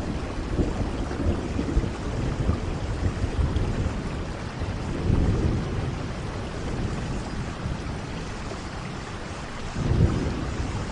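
Steady rain falling, with low rolls of thunder rumbling under it: one swell about halfway through and another near the end.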